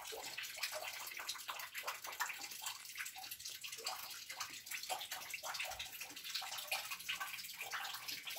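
Water dripping fast and irregularly from a leaking ceiling, many drops splashing into a bucket on the floor.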